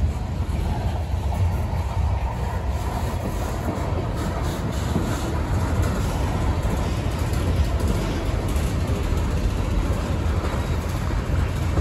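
CSX freight cars rolling past: a steady rumble of steel wheels on the rails as a centerbeam lumber car, tank cars and an open-top hopper go by.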